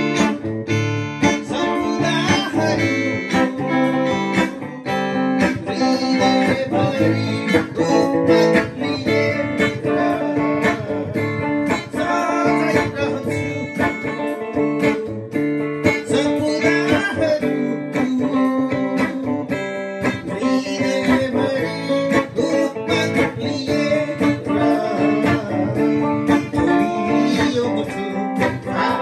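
Gretsch guitar being played, a continuous run of plucked notes and strummed chords at a steady, even level.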